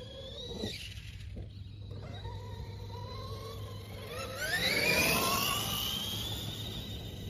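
Electric brushless RC truck motor whining as the truck drives over grass. The whine sinks in pitch and fades in the first second, then about four seconds in it climbs sharply as the truck speeds up and comes closer, loudest about five seconds in.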